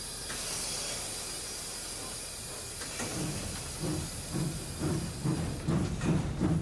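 Steam locomotive 80039, a class 80 tank engine, hissing steam as it pulls away. About halfway through, a low rhythmic beat of two or three a second sets in as the train gets rolling.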